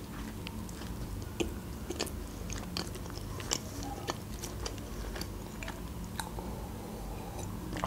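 Close-miked chewing of a bite of soft homemade pizza: scattered small wet mouth clicks over a low steady hum.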